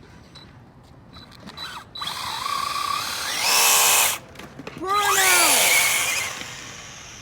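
Electric RC car's motor whining hard at full throttle in two loud bursts, the second rising and then falling in pitch, as the wheels spin on the pavement in a burnout.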